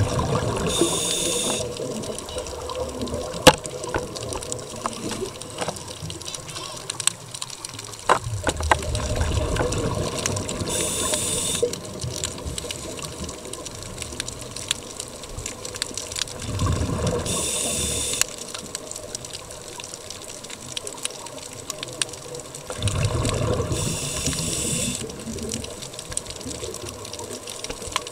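Scuba regulator breathing heard underwater: four breath cycles, about 6 to 7 seconds apart. Each has a hiss of air drawn through the regulator and a rush of exhaled bubbles, over a steady underwater wash with small clicks.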